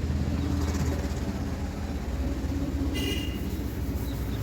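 Steady low mechanical rumble, like an engine or machine running, with a short high-pitched toot about three seconds in.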